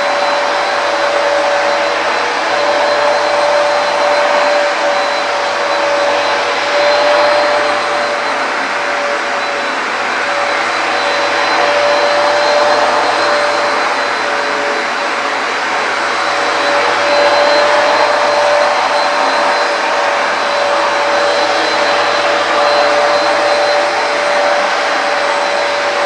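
Hoover PowerDash carpet cleaner running steadily on a rug, its suction motor giving a continuous rushing noise with a steady whine over it.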